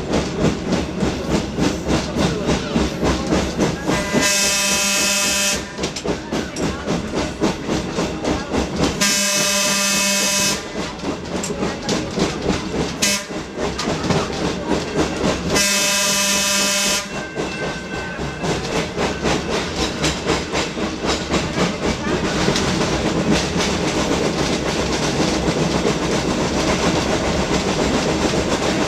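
Replica Pacific Electric Red Car trolley running on its rails with a rhythmic clatter, sounding its whistle in three long blasts of about a second and a half each. In the last third the clatter turns into a steadier rolling rumble.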